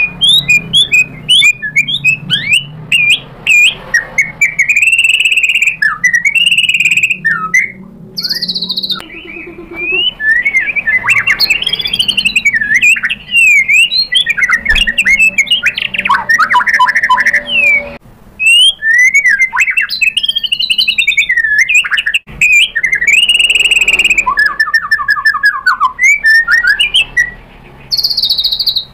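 White-rumped shama (murai batu) in full, aggressive song: loud, varied phrases of whistles, rapid trills and sliding notes, broken by a few brief pauses.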